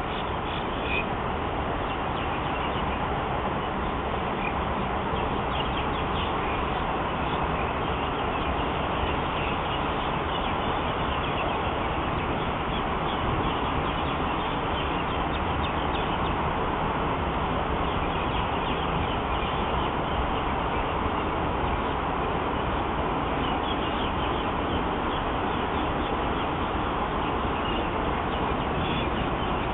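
Steady outdoor background noise, even and unbroken, with faint short bird chirps scattered through it.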